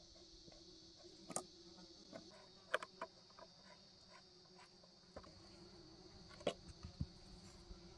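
Steady high chirring of insects, with a few scattered sharp clicks and knocks from hand tools and wooden boards being handled; the loudest knocks come about three seconds in and again near the end.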